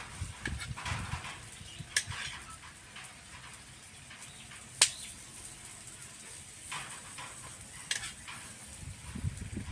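A metal spoon clinking and scraping against shells and a plate of shucked shellfish meat, in scattered clicks with one sharp click about five seconds in. Under it, a faint steady sizzle from shellfish roasting in the shell on a wire grill over charcoal.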